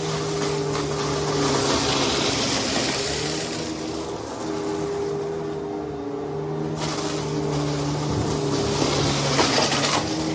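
Riccar Vibrance upright vacuum cleaner running, its motor giving a steady hum under a hiss of air and debris being sucked up that swells and fades twice.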